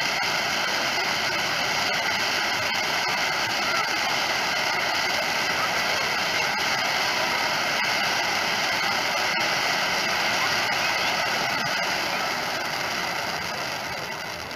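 Firework wheel set piece with spark fountains on its arms, giving a steady rushing hiss with light crackle, which eases off over the last couple of seconds as the fountains burn down.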